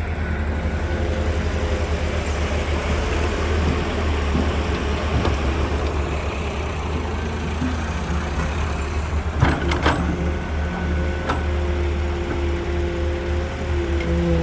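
Diesel engine of a Hyundai 130W wheeled excavator running steadily at work. A steady whine comes and goes over it in the second half, and there are a few sharp clanks about two-thirds of the way in.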